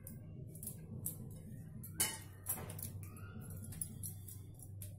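Raw prawns being peeled by hand: shells crackling and snapping in a run of small, irregular clicks, with light clinks of a knife against a steel bowl. The sharpest click comes about two seconds in.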